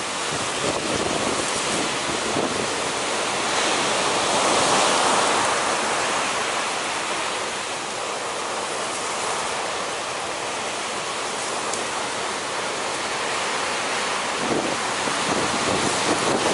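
Big ocean surf breaking, a continuous rush of whitewater that swells a little louder about four seconds in, with wind buffeting the microphone.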